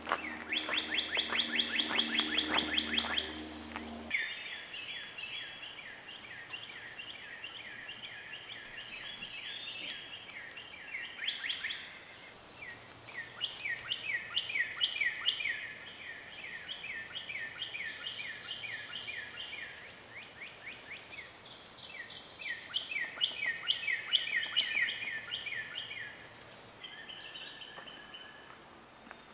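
Songbirds singing, long bouts of rapid, high repeated chirps in trills, loudest in the first few seconds. A low steady drone sits under the opening four seconds and cuts off abruptly.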